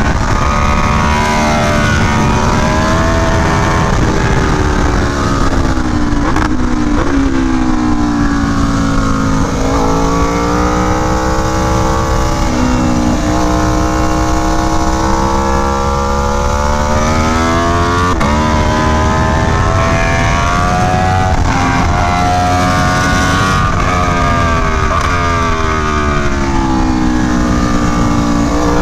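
Aprilia Tuono V4 1100 Factory's V4 engine, breathing through an SC Project CR-T exhaust, pulling hard on track. Its pitch climbs for several seconds and then falls away, over and over, as the bike accelerates and slows through the corners.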